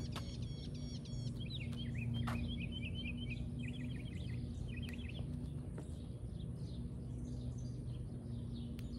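Birds chirping in runs of quick, repeated calls over a steady low background hum, with a single sharp tap a little over two seconds in.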